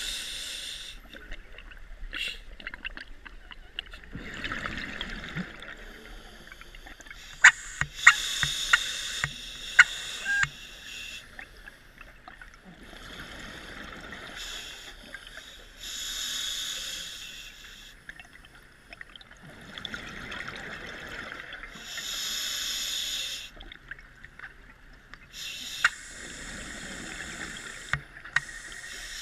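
Scuba diver breathing through a regulator underwater: a hiss on each inhale and a bubbling rush on each exhale, repeating about every six to eight seconds. A few sharp clicks sound about a quarter of the way through.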